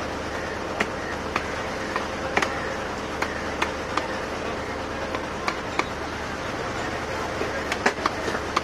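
Heavy knife chopping chicken on a wooden chopping block: sharp, irregular chops about one to two a second, with a quick cluster of strikes near the end, over steady background noise.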